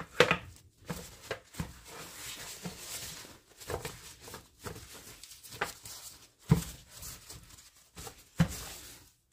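Paper towel and plastic gloves rustling and crinkling irregularly as raw pork ribs are patted and rubbed dry, with a few sharp knocks, two louder ones near the end.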